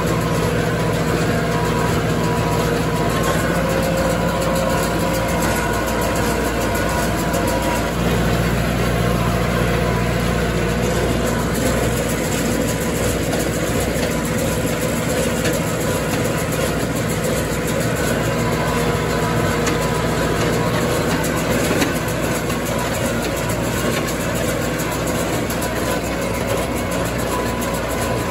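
Massey Ferguson tractor engine running steadily while working hay in the field, with a slight change in engine note about eight seconds in.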